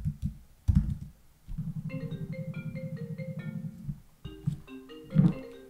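Mobile phone ringing with a marimba-style ringtone: a quick pattern of mallet notes that starts about two seconds in, pauses briefly and starts again. A low pulsing buzz runs under the first ring.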